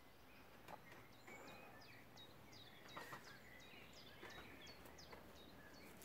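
Faint bird call: a short, high chirp repeated about three times a second, over quiet outdoor background with a few faint clicks.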